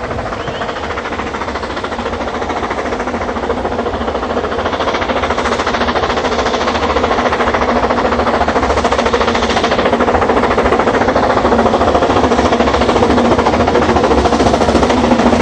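Narrow-gauge steam locomotive chuffing with rapid exhaust beats, getting louder as it approaches and passes.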